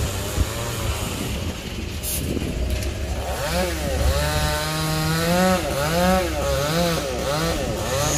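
Gasoline chainsaw running up in a sao tree while cutting a branch. From about three seconds in, the engine revs rise and fall repeatedly, about twice a second.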